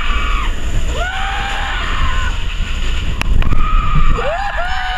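Several voices screaming in short rising-and-falling shrieks over a steady low rumble, with a sharp knock a little past three seconds in.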